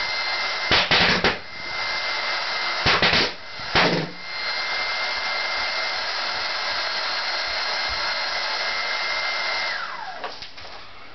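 Home-built pulse detonation engine firing in three short clusters of sharp bangs, over the steady hiss and high whine of its air supply. Near the end the whine falls in pitch and the hiss stops as the air supply winds down.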